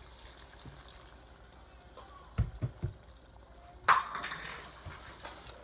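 Water poured into a hot pot of chicken and chickpea curry: a sharp hiss and splash about four seconds in that fades over about a second. A faint sizzle runs underneath, and three dull knocks come a little before the pour.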